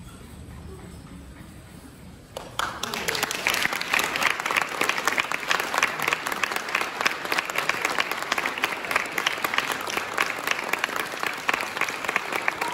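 Audience applause at a curtain call, breaking out suddenly a couple of seconds in and then going on as dense, loud clapping.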